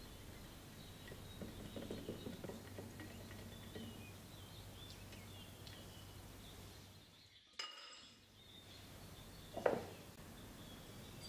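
Whisk stirring a milky liquid in a glass measuring jug, with faint light clicks of the wires against the glass, over a low steady hum. A short thump near the end is the loudest sound.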